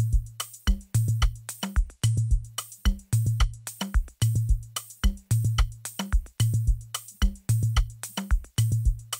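Programmed drum loop playing back from FL Studio: a deep kick with a booming low note roughly once a second, and quick clicky percussion, shakers and rim shots between the kicks. The rim shots sit too loud in the mix after the panning.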